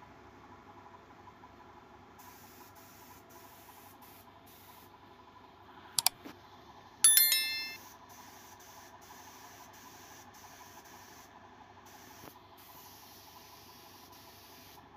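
Industrial sewing machine running with a faint steady hum while quilted fabric is stitched. About six seconds in there is a sharp click, and a second later a loud metallic ding that rings briefly and fades.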